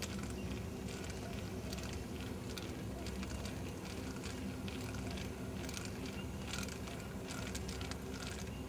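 Fishing reel being cranked steadily on a fast lure retrieve: a low, even whirring with light irregular ticking.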